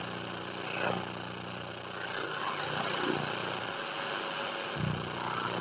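Shortwave AM radio reception with no programme audio: a steady hiss of static with a low hum under it, the open carrier of Voice of Korea on 11910 kHz heard through a Kenwood R-1000 receiver in the gap before the news bulletin.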